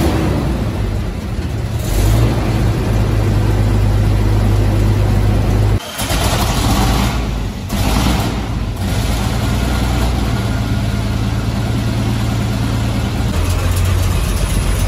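Heavy military truck engine, the Pacific M26 tractor's big six-cylinder petrol engine, running with a steady low drone. It breaks off briefly about six seconds in, then comes back louder and noisier for a few seconds before settling again.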